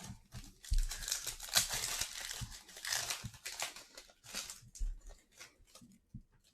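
A plastic trading-card pack wrapper being torn open and crinkled by hand. A dense stretch of crackling runs for a few seconds and thins out into a few light rustles and clicks near the end.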